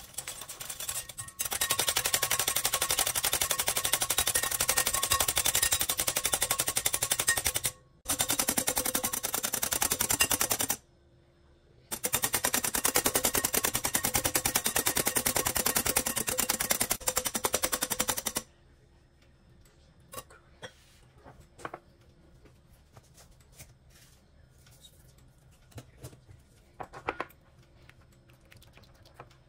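Wire balloon whisk beating egg whites by hand in a glass bowl: a fast, continuous rattle of the wires against the glass, in three long runs broken by two short pauses. For the last ten seconds only scattered light clicks and taps remain.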